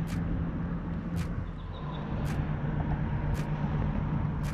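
A boat engine running steadily out on the water, holding one low, even pitch that drops slightly about a second and a half in, over a low rumbling noise. A faint sharp tick repeats about once a second.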